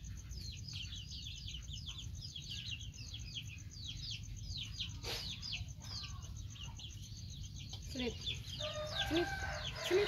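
Birds chirping: a continuous run of short, high, falling peeps several times a second, with a longer, lower call about nine seconds in.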